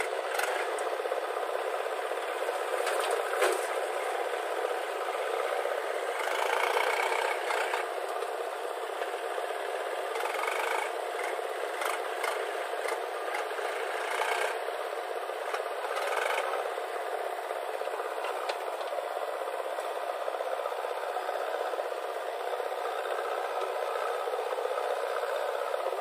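A backhoe loader and tractor at work: diesel engines running steadily while the backhoe bucket digs and scrapes soil and tips it into a tractor's metal trolley. There are several loud clatters and rattles of earth and bucket against the trolley.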